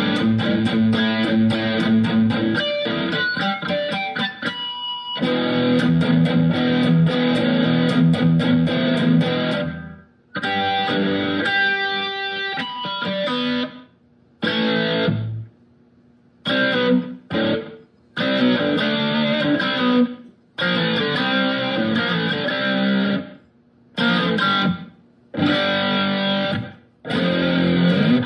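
Electric guitar played through a Sonicake Matribox II Pro multi-effects processor on a high-gain metal preset. It plays continuous riffing for about ten seconds, then short stop-start phrases. A tight noise gate cuts each phrase off sharply into silence.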